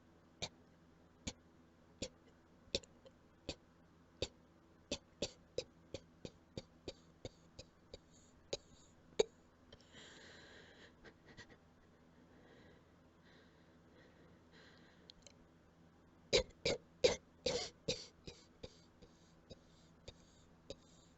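A person's quiet, short coughs in a long series, coming faster and faster until about two or three a second, with a drawn breath about ten seconds in and a louder burst of coughs around sixteen to eighteen seconds in: coughing until running out of breath.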